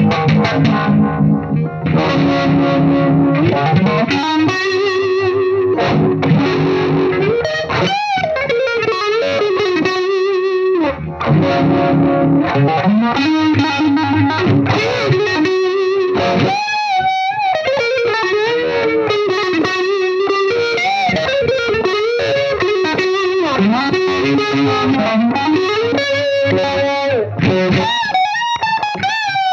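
Distorted electric guitar played through a Roger Mayer Voodoo-Vibe, a Uni-Vibe-style modulation pedal, giving a wavering, throbbing tone. It opens on sustained chords, then plays single-note lead lines full of bends and wide vibrato.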